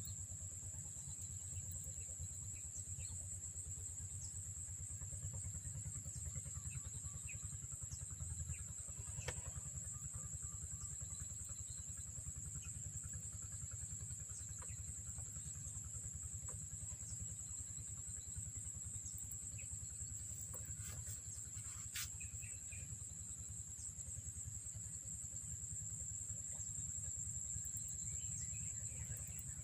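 Insects trilling in one steady high note over a low, even rumble, with a few faint ticks.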